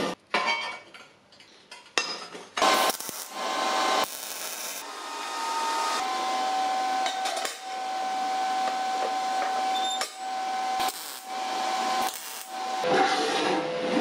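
A MIG welder's arc crackling and hissing in several runs with short breaks, as the steel side strip of a wood chipper housing is welded to its round plate. A few light metal knocks come first.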